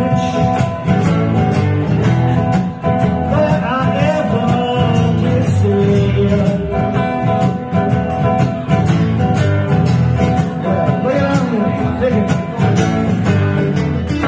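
Live blues played on an acoustic guitar and a hollow-body electric guitar, with a man singing over them.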